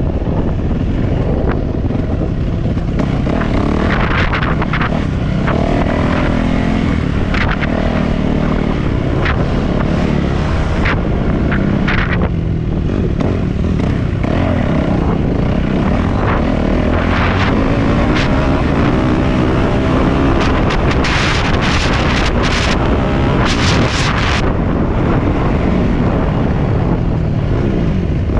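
Dirt bike engine running hard, its pitch rising and falling as the throttle is worked, with many short knocks and rattles over the top.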